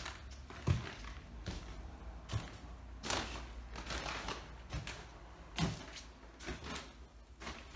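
Footsteps climbing an oak staircase wrapped in plastic sheeting: a low thud roughly every second, with the plastic rustling and crinkling underfoot.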